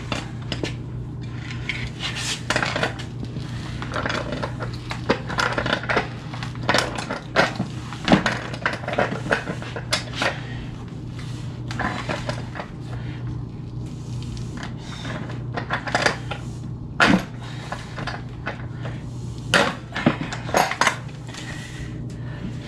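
Irregular metal clinks, knocks and scrapes of pliers gripping and turning the brass pipe fittings on top of a small electric water heater, with several sharper clanks.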